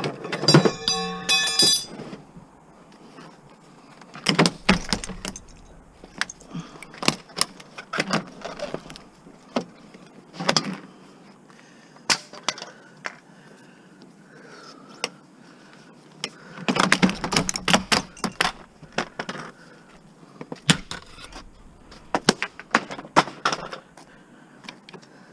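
Plastic and metal parts of a rear-projection TV clattering, knocking and rattling as the cabinet is taken apart by hand and the screen panel is pulled off, in a long run of separate knocks. A cordless drill-driver whirs briefly at the start.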